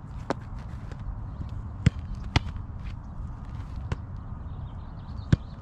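Sharp thuds of a soccer ball being struck and taken by a goalkeeper's gloves in a shot-stopping drill, about five hits a second or more apart, the loudest near two seconds in and near the end, over a low steady rumble.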